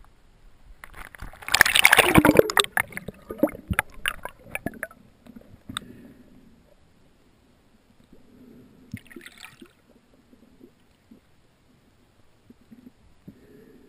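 Water splashing and a rush of bubbles over a wrist-worn camera housing as it plunges under the surface, loudest a second or two in and fading into scattered crackles. Then muffled underwater quiet with faint bubbling and clicks, and a brief hiss of bubbles about nine seconds in.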